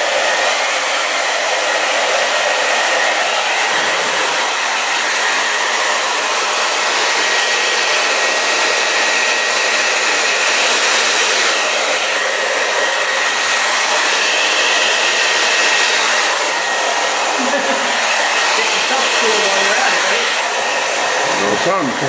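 Hair dryer running steadily, a rush of blown air with a thin steady whine in it, as it blows wet acrylic pour paint across a canvas.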